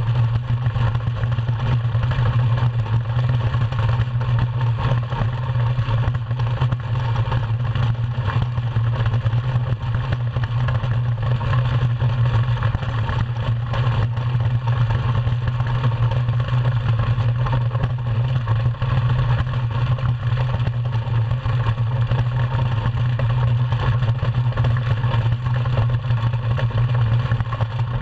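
Steady low drone of a DN ice yacht's steel runners sliding fast over the ice, carried through the hull, with a hiss of air over it.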